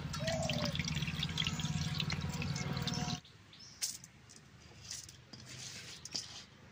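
Soaking water poured off red lentils and rice from one steel bowl into another, splashing steadily. About three seconds in it cuts off suddenly, leaving near quiet with a few faint clicks.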